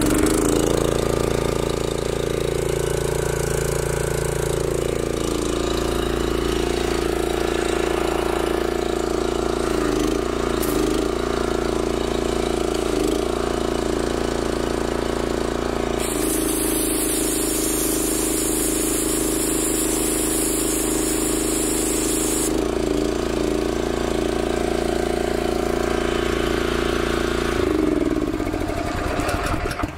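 A Honda-powered gas pressure washer engine is pull-started and runs steadily. About halfway through, a loud high hiss of the spray jet joins it for several seconds as the red zero-degree tip blasts into a wooden board, cutting a hole. The engine is shut off and winds down near the end.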